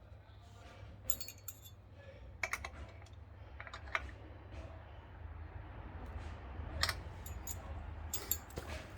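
Spanner clinking on a motorcycle's chain adjuster lock nuts as they are done up: a handful of separate sharp metallic clicks and clinks over a steady low hum.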